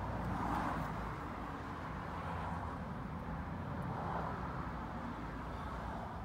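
Road traffic passing outside the parked car: a rushing noise that swells and fades about three times, over a low rumble.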